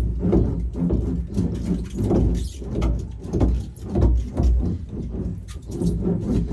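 Hand roller being pushed back and forth over sound-deadening mat on the van's sheet-metal body panel, an uneven run of low rubbing strokes about one or two a second as the mat is pressed down.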